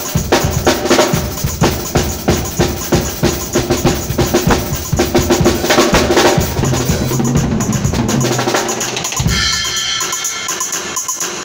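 Acoustic drum kit played fast, with snare rolls and bass drum strikes in a dense run of hits. About nine seconds in the hitting stops, and a ringing tone dies away.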